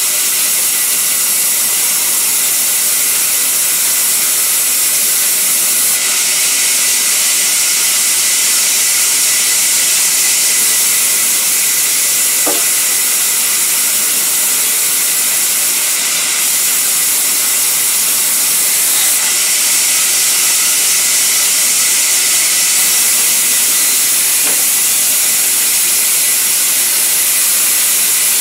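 Vertical band saw cutting lengthwise through a sal-wood plank, the blade in the timber giving a steady, loud, high-pitched noise.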